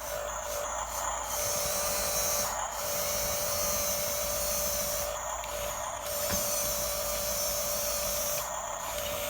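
Small electric motors of a radio-controlled model bulldozer whining steadily. The high whine drops out briefly several times as the motors pause and pick up again.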